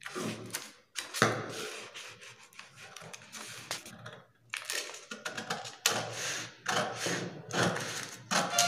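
Scissors cutting through stiff brown pattern paper: a run of crisp snips at an uneven pace, with the paper rustling between strokes as the sleeve pattern is cut out along its drafted line.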